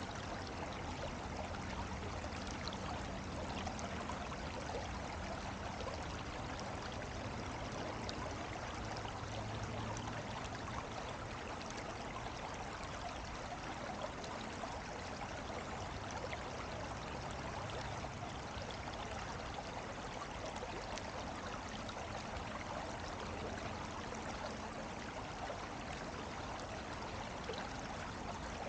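Running water trickling and flowing steadily, with a faint low hum underneath.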